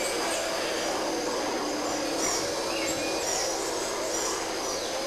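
Rainforest ambience: many birds calling and whistling in short chirps over a steady low drone.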